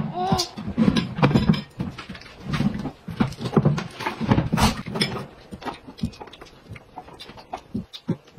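Tableware sounds at a meal: irregular clicks and clinks of chopsticks, plates and a small glass jar being handled, with chewing and low muffled mouth sounds.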